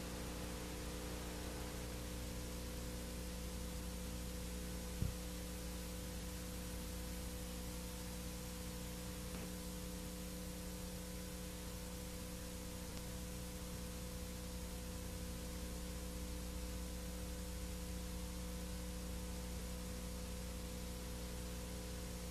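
Steady mains hum and hiss on an old amateur film soundtrack, with a single click about five seconds in.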